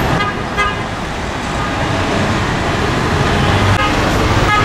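Busy street traffic noise, with two short car-horn beeps near the start and another horn beginning just at the end.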